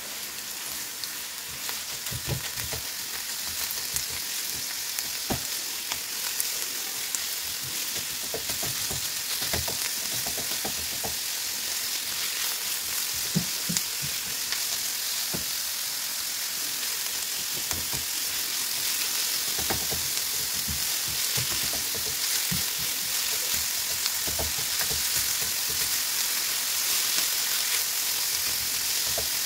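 Minced meat and chopped onions sizzling in a non-stick frying pan while a spatula breaks up and stirs the meat, its strokes giving irregular soft knocks and scrapes against the pan. The sizzle slowly grows louder as the pan heats through the meat.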